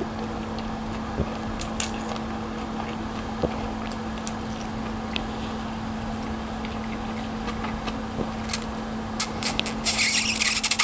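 Close-miked eating of chow mein noodles: chewing and slurping with small wet mouth clicks over a steady low hum, and a louder hissing slurp near the end.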